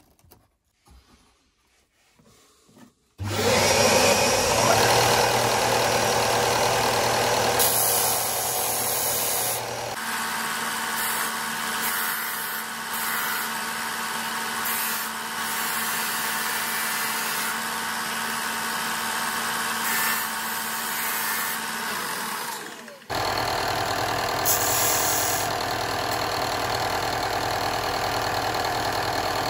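A few faint handling clicks, then an electric benchtop disc sander starts abruptly about three seconds in and runs steadily, sanding the edges of a clear acrylic sheet. The sound drops out briefly near the end and picks up again.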